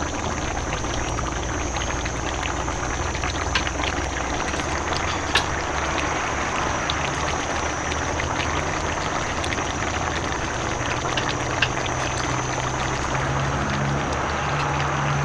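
Pot of curry boiling and bubbling steadily, with a few sharp ticks, over a steady low hum and a thin high tone.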